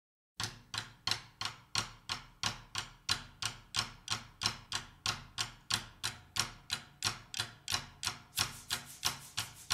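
A steady train of sharp, quickly fading clicks, about three a second, starting about half a second in.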